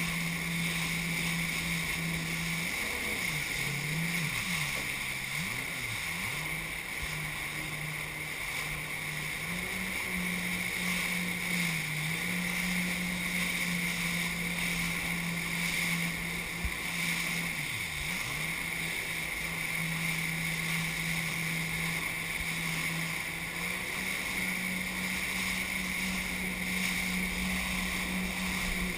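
Jet ski engine running under way on open sea, with water and spray rushing against the hull. The engine note holds steady but dips and climbs back a few times, several in quick succession within the first few seconds and again just past halfway, as the throttle is eased and reopened.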